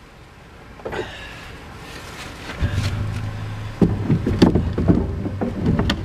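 Plastic clicks and knocks from a black switch case being fitted back onto a riding mower. A low steady hum joins about halfway through.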